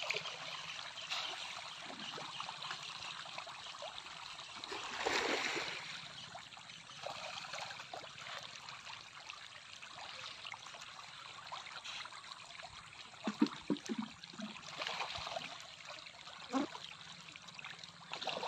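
A crowd of fish churning at a pond's surface: continuous light splashing and trickling water, with a few louder splashes.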